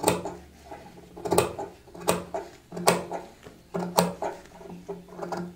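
Large steel tailor's scissors cutting through layered fabric along a marked neckline, with a crisp snip of the blades about once a second, six in all.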